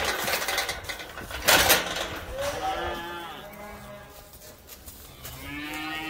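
Cattle mooing: one drawn-out call a couple of seconds in and another starting near the end. There are two loud scuffing noises in the first two seconds.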